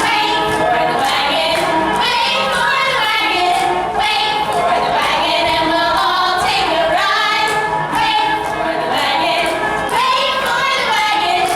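Several women singing a song together over musical accompaniment.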